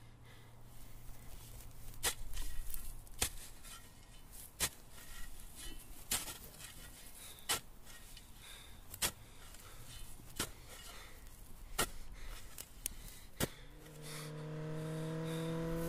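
Shovel chopping into dry, hard ground, one sharp strike about every second and a half. Near the end a steady low drone of several tones fades in and grows louder.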